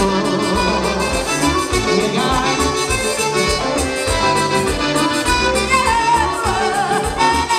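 Band playing accordion-led Latin dance music, an instrumental passage with held melody notes over a steady bass beat.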